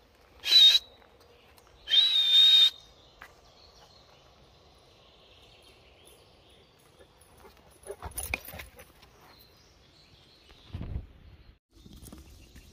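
Two high whistles, a short one and then a longer one about a second later, followed by a few soft knocks about eight seconds in.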